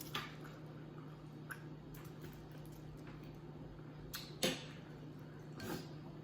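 Quiet eating at the table: a few soft clicks and taps of a spoon against a plate, with a sharper tap about four and a half seconds in, over a steady low hum.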